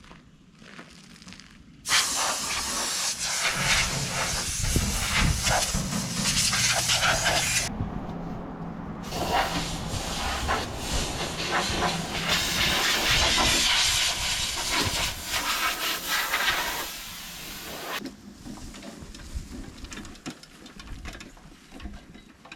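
A high-pressure cleaning jet hissing as it blasts the New Holland 855 hay baler. It runs for about six seconds, stops briefly, then runs for about nine seconds more before cutting off.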